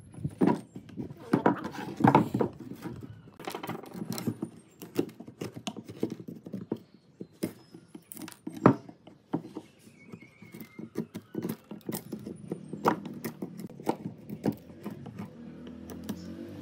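Bark being scraped and pried off a dead tree branch with a hand-held chisel blade: an irregular run of scrapes, cracks and clicks as flakes of bark split off and drop onto the wooden bench, with one sharp crack about halfway through.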